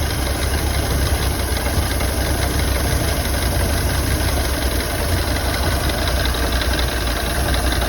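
Ford Model A four-cylinder flathead engine idling steadily, the engine that has the misfire being chased.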